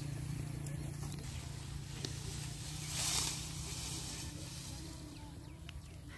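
Outdoor field ambience with a steady low hum, and a brief rustle of cut fodder stalks being handled about three seconds in.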